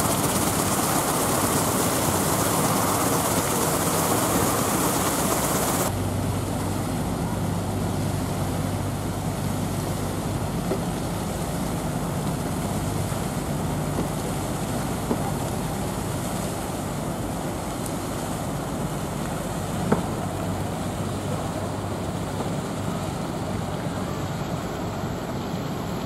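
Water rushing steadily over the lip of a cascade fountain. After about six seconds it suddenly gives way to quieter open-air city ambience with a steady low hum of distant engines. A single sharp click comes about twenty seconds in.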